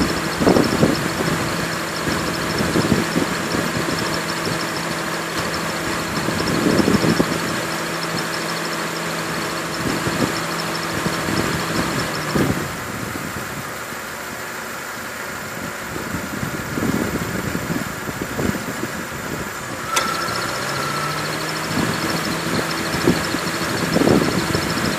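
2002 Honda Accord engine idling with the AC compressor drive giving a rapid, pulsing high-pitched squeal. The squeal stops about halfway through and returns with a sharp click near the end, as the AC compressor clutch cuts out and re-engages. The AC system was found low on refrigerant, with a leaking low-side Schrader valve, and the squeal ended after new belts and a recharge.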